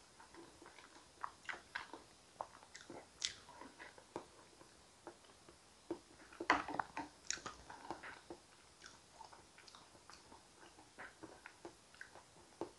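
Faint close-up eating sounds of a person taking thick sweet potato soup with diced avocado from a wooden spoon: soft mouth clicks and smacks, scattered, with a small cluster about six and a half seconds in.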